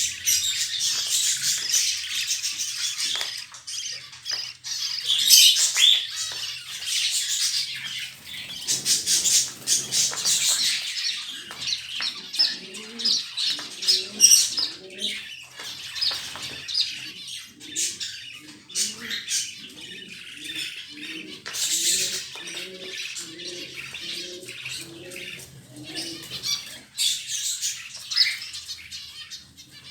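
Budgerigars chattering and chirping in quick, high-pitched notes. A lower note repeats about twice a second through the middle stretch.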